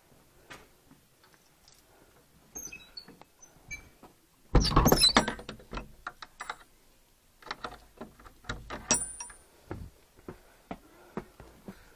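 A wooden door and its metal slide bolt worked by hand: scattered clicks and knocks, a loud clattering thunk about four and a half seconds in, then more knocks and rattles, with footsteps on concrete steps near the end.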